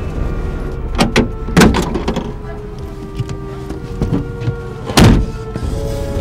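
A jeep's door opening and shutting: a few sharp thunks and knocks, the loudest about a second and a half in and again about five seconds in, over steady background music.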